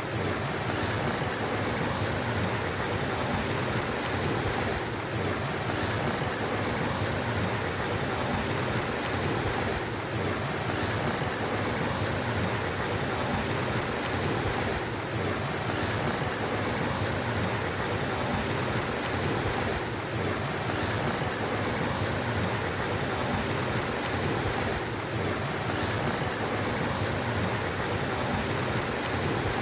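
Steady rushing of flowing water, an even unbroken wash of sound.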